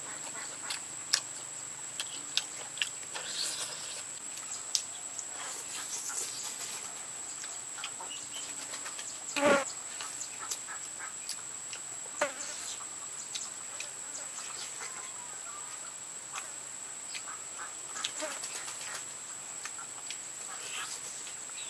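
Chewing and sharp lip smacks of a man eating cooked buffalo leg meat with his hands, over a steady high-pitched insect drone. One louder short sound comes about halfway through.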